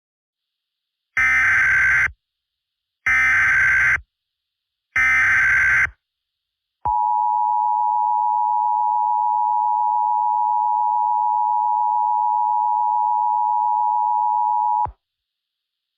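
Emergency Alert System tones: three buzzing bursts of SAME header data, about a second each, then the steady two-tone attention signal held for about eight seconds and cut off sharply. Together they mark the start of a new emergency alert broadcast.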